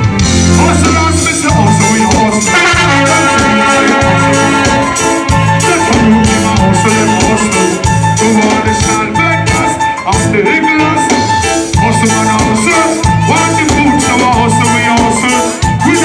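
Live reggae band playing through the PA: a repeating bass line and drum kit, with a sustained melody line above.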